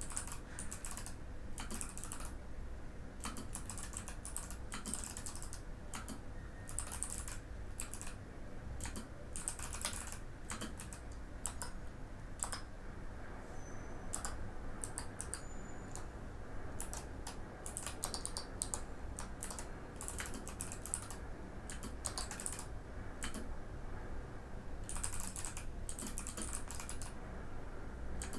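Typing on a Mikit M65 mechanical keyboard with Box White switches: keys clacking in irregular runs with short pauses between them.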